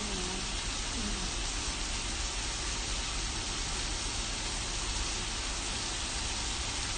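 Pork belly strips and hotdogs sizzling steadily on an electric grill plate.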